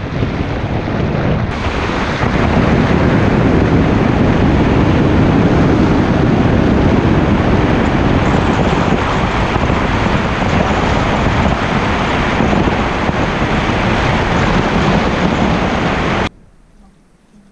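Loud wind rush on the microphone of a camera mounted on the outside of a moving car, mixed with road noise. It gets louder about a second and a half in and cuts off suddenly near the end.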